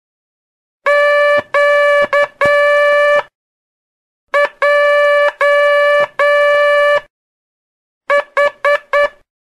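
Morse code beeps on a single steady pitch slowly sending three letters: Q (dah-dah-di-dah), then J (di-dah-dah-dah), then H (four quick dits), with a pause between each letter.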